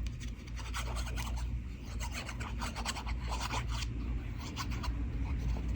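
Irregular scratchy rubbing and rustling of cut paper pieces being handled and pressed down by hand while they are glued on, over a low steady hum.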